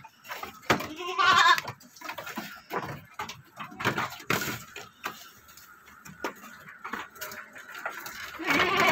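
A goat bleating twice: a quavering bleat about a second in, and another near the end. Between them come short knocks of hooves on the pen's wooden slatted floor.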